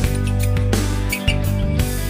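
Background music led by guitar, with a steady bass line and regular note changes.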